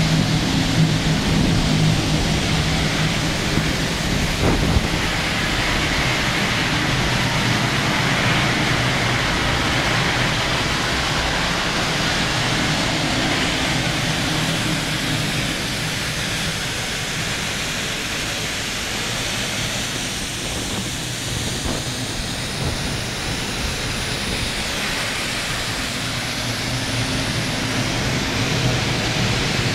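Aluminium hydrate slurry pouring and splashing onto a horizontal pan vacuum filter, a steady rushing of liquid over a low machinery hum.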